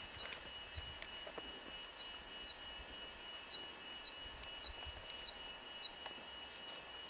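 Quiet outdoor ambience: a faint high chirp repeating about twice a second over a steady high whine, with a few soft footfalls.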